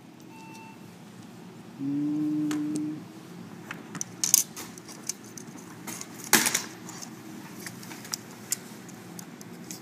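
Handling clicks and light taps as a laptop video card and its black heatsink cover are fitted back together, with sharper clicks about four and a half and six and a half seconds in. About two seconds in, a brief low hum lasts about a second.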